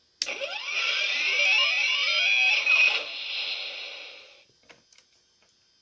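U-Command WALL-E toy playing an electronic sound effect through its speaker: a cluster of gliding, musical tones that starts suddenly and fades out after about four seconds, the toy responding once it has been switched on.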